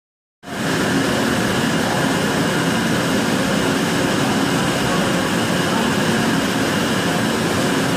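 Citizen A20VII CNC Swiss-type lathe running: a steady, even machine hum with a few faint steady tones, starting about half a second in.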